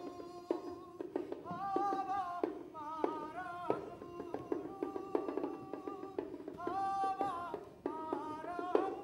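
Live music for the stage: a held melodic line that glides between notes, with sharp percussion strokes scattered through it.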